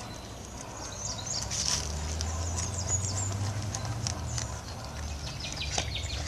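Outdoor animal recording: many short, high chirps and calls over a low, steady rumble.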